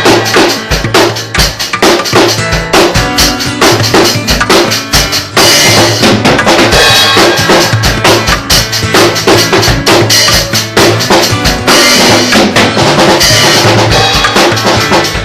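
Music led by a drum kit playing a fast, busy beat over a steady bass line.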